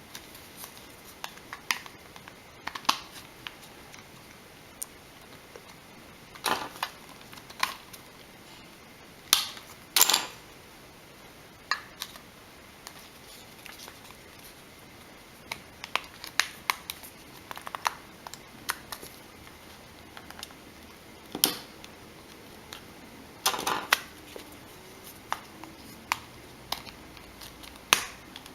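Scattered sharp plastic clicks and snaps at irregular intervals, a few of them coming in quick clusters: a plastic pry tool being worked around the edge of a Samsung Galaxy Nexus i9250, popping the plastic frame's clips loose from the glass front.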